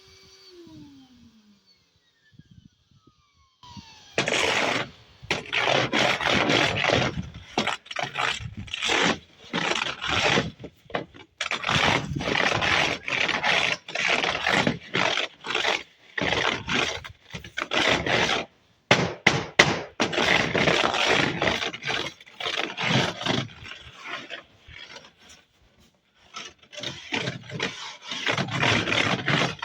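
A vacuum cleaner's motor winding down, its whine falling in pitch and stopping within the first two seconds. From about four seconds in there is a run of loud, irregular, rough scraping or crunching bursts with short gaps between them.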